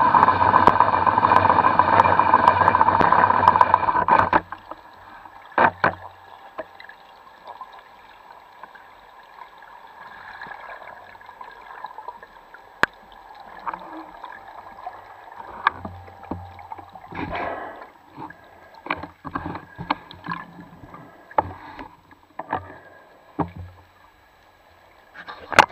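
Underwater recording: a loud, steady mechanical drone with several fixed tones cuts off about four seconds in. After it comes a quieter wash of water noise broken by scattered knocks, clicks and short bubbling bursts as divers handle a speared fish and their spearfishing gear.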